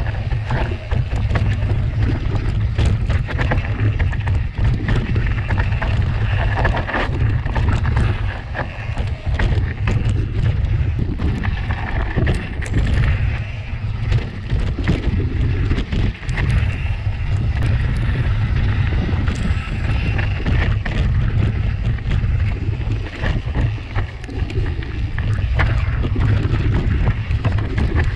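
Mountain bike ridden over a rough natural trail, with tyres crunching and the bike rattling in frequent short clicks and knocks, under a heavy steady rumble of wind on the action-camera microphone.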